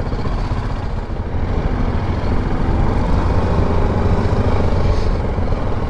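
BMW G310 GS single-cylinder motorcycle engine running at low speed in stop-and-go city traffic, a steady low rumble.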